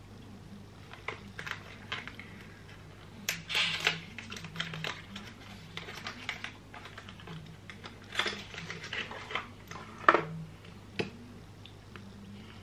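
Scattered small clicks and taps of fingernails on a cosmetic bottle as a skin-enhancer base is opened and dispensed, with a few soft rustles. The sharpest click comes about ten seconds in.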